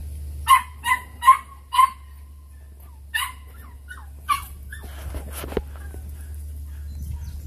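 Podengo puppy yapping in short, high-pitched barks: four quick yaps in the first two seconds, then two more spaced about a second apart, then a little scuffling.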